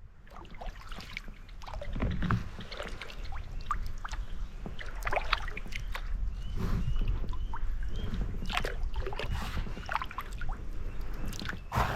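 Kayak paddle strokes dipping and splashing in lake water, irregular splashes and drips with water lapping against the hull.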